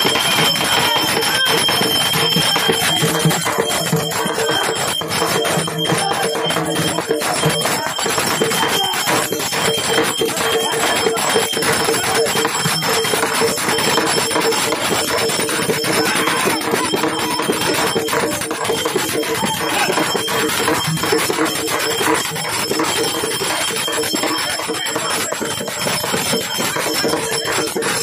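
Loud, continuous festival music: dense, rapid beating with steady ringing tones held above it.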